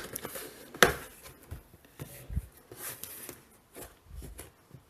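Cardboard shipping box being opened by hand: flaps pulled open and the box handled, with a sharp tap about a second in and softer rustles and a dull knock after.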